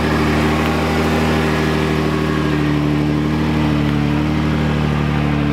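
Jeep Wrangler's engine running at a steady low speed under load as it crawls up a steep dirt climb, its pitch holding almost constant.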